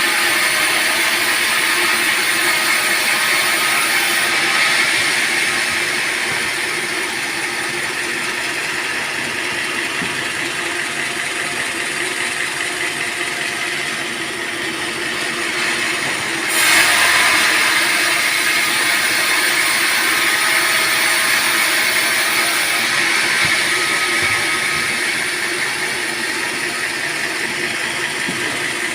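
Sawmill band saw running steadily through a teak log. About sixteen and a half seconds in the sound turns suddenly louder and brighter, then settles again.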